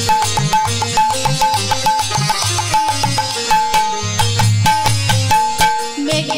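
Instrumental kirtan music: a hand drum playing a steady rhythm of deep strokes, with sharp cymbal-like strikes and a melody of held notes over it.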